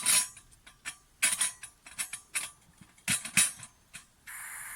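Metallic clicks and clatter as a Takei kerosene pressure burner is worked to relight it, then, about four seconds in, a steady hiss from the burner starts up.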